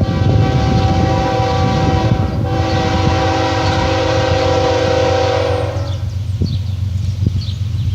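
Multi-chime air horn of a GE ES45AH diesel locomotive blowing a long horn-show sequence, broken briefly about two and a half seconds in and cutting off about six seconds in. A low train rumble runs underneath.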